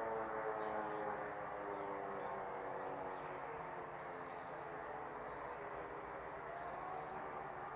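Electric civil-defence sirens (E57s and an F2 low-tone siren) winding down after a test alarm, their falling tones fading out over the first few seconds. A faint siren from further away is left rising near the end, with a few bird chirps.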